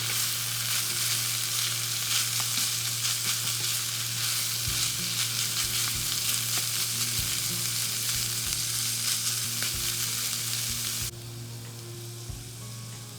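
Food sizzling as it fries in a pan, with a steady low hum underneath and occasional low knocks. The sizzling cuts off suddenly about eleven seconds in, leaving a quieter background.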